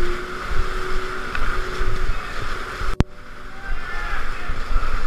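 Whitewater rapids rushing and churning around a kayak, heard close up from a camera at the kayak's bow, with irregular low buffeting on the microphone. A sharp click about three seconds in, with a brief drop in level.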